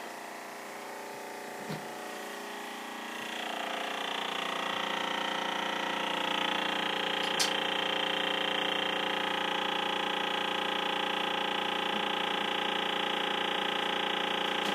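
Freezer fan of a Samsung RS261MDWP refrigerator running with a steady whirr made of several held tones. It grows louder about three seconds in, and there is a sharp click about halfway through. The noise is the sign of a malfunctioning freezer fan.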